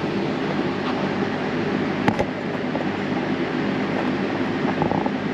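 Steady machine hum from a running motor, with one sharp knock about two seconds in.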